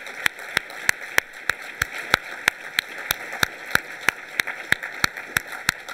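Audience applauding, a steady patter of many hands, with one person's close, sharp claps about three a second standing out above it, picked up at the podium microphone.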